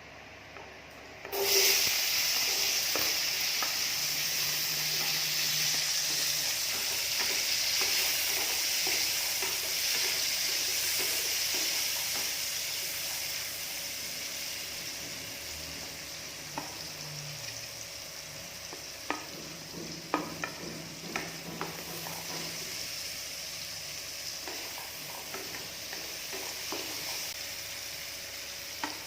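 Chopped vegetables hit hot oil in a pan and start sizzling loudly about a second and a half in. The frying hiss then runs on and slowly quietens, with a few clicks of a stirring utensil against the pan in the second half.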